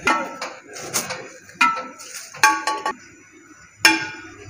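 Steel serving scoop knocking against the side of a large metal biryani pot (degh) as rice is scooped out: about six sharp metallic clinks with a short ring after each.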